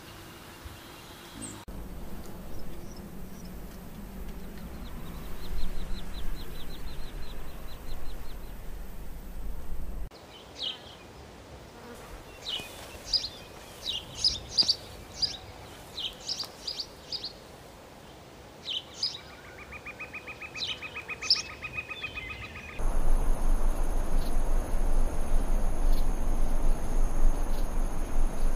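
Layered nature ambience of insects buzzing and trilling, with a stretch of short, high bird chirps in the middle. About two thirds of the way through it gives way to a louder steady hiss carrying thin, steady high whines.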